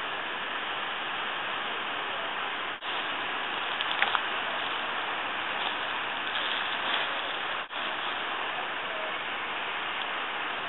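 Steady background hiss with no words. It breaks off for an instant twice and has a couple of faint clicks about four seconds in.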